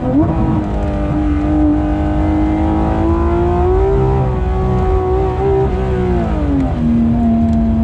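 Porsche 991.2 GT3 RS's flat-six engine running hard. Its pitch jumps up at the start, climbs slowly for a few seconds, then falls to a lower steady note about a second before the end.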